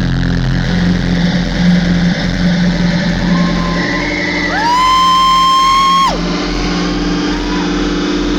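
Live rock band playing a sustained low droning chord. A loud high note slides up about four and a half seconds in, holds, and cuts off about a second and a half later.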